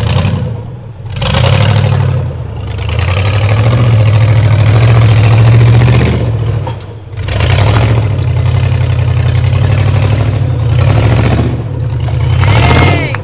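Off-road Jeep's engine revving and easing off in long pulls under load while crawling over obstacles. It drops back briefly about a second in and again about seven seconds in.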